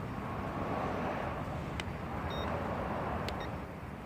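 Steady low background rumble with a few faint clicks and a short high beep about two seconds in, the sounds of the drone's transmitter being worked to start recording before takeoff.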